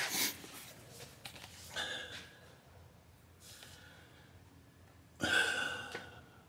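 A person breathing out heavily and sighing several times, the loudest breath about five seconds in.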